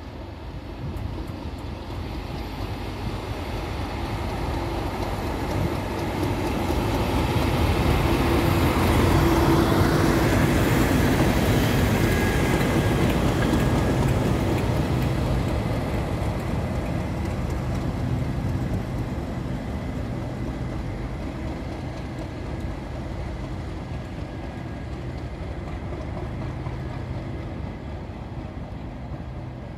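Class 37 diesel locomotive 37800 running light with no train: its engine grows steadily louder as it approaches, passes close by about ten seconds in, then slowly fades as it moves away.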